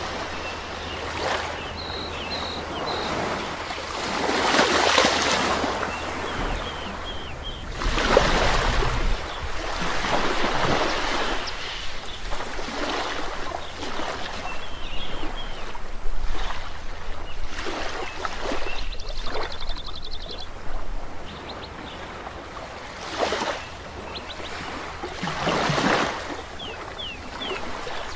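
Sea waves breaking and washing up on a shore, surging every few seconds, with small birds chirping over them and a short trill near the middle.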